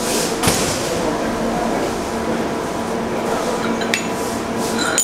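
Sharp metallic clinks of a steel track tool knocking against the rail and switch fittings, once about four seconds in and again near the end, each ringing briefly, over a steady low hum.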